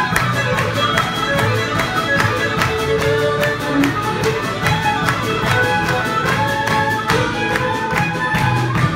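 Two fiddles playing a lively tune together over acoustic guitar, low bass notes and a steady beat: live string-band music.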